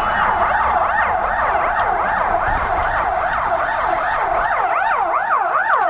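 Siren wailing rapidly up and down, several sweeps overlapping. The sweeps quicken near the end and cut off suddenly.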